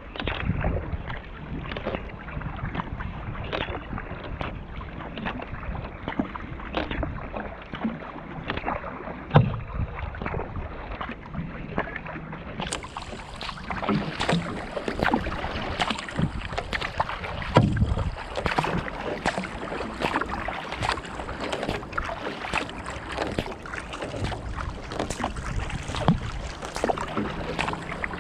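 Kayak under paddle: water rushing and lapping along the hull, with repeated irregular splashes from the paddle blades and a few louder low knocks.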